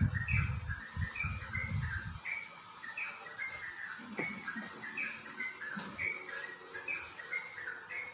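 Small birds chirping continuously in short repeated notes, a few per second. Low muffled thumps during the first two seconds.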